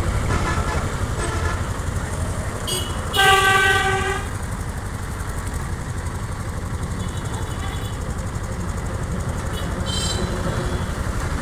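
Engines of heavy road-paving machinery running steadily, with one vehicle horn blast of under a second about three seconds in.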